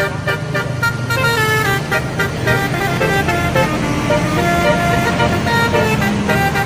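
Indonesian bus telolet horn, a multi-tone air horn, playing a rapid run of changing notes like a little tune, several notes sounding at once. The bus engine runs underneath.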